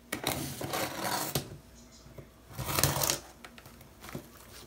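A small box cutter slicing through packing tape along the top of a cardboard box: two scratchy cuts, the first about a second long and the second shorter, then a brief scrape near the end.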